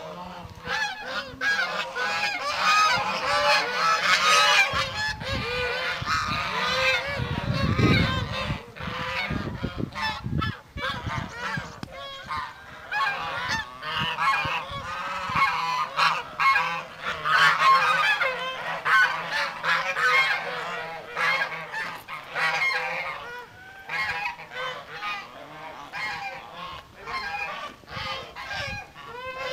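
A flock of white domestic geese honking continuously, many overlapping calls. A low rumble runs under the calls from about five to eleven seconds in.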